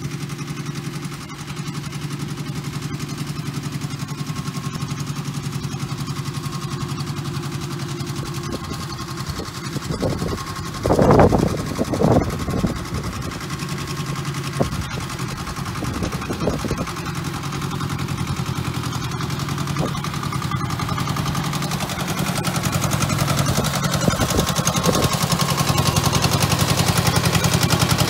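Small compact tractor engine running steadily as it tows a harrow across the arena sand, with fine rapid ticking in its note. A few loud bursts come about eleven and twelve seconds in, and the engine grows louder near the end as the tractor comes close.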